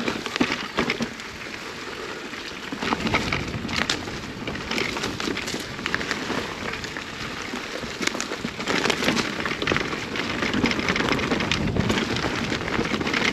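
Electric mountain bike riding over rough backcountry singletrack: a steady crackle of tyres on gravel, roots and scrub, with many short knocks and rattles from the bike, its rear derailleur taking knocks.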